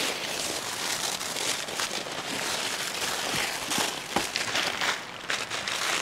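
Steady crackling rustle in dry fallen leaves, with scattered sharper clicks.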